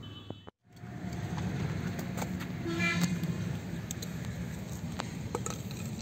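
Steady low outdoor rumble by the water's edge, with a few faint clicks and a short pitched call about three seconds in. The sound drops out briefly just after the start.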